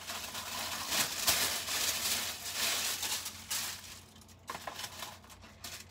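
Paper packaging crinkling and rustling as a box is rummaged through, with a few light clicks. It dies away about four seconds in.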